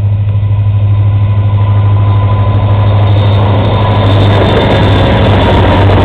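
Diesel locomotive engine of a passing CSX freight train running under load close by, a deep steady hum with a fast throb. From about three seconds in, a rushing noise of the train's wheels on the rails builds and grows louder.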